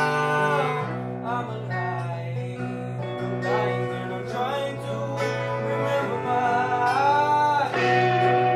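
Background music: acoustic guitar with a singing voice holding long, bending notes.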